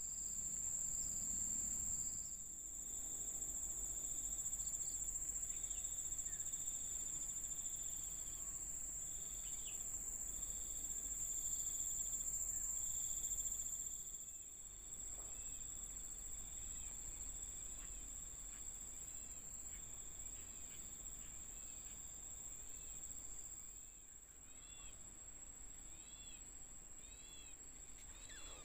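Tropical rural ambience: a steady, high-pitched insect drone, with a lower insect trill coming in bouts of a second or so during the first half. A bird gives short, arched chirps that come more and more often towards the end.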